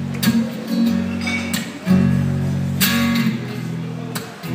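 Acoustic guitar strumming slow sustained chords, played live as a song's opening.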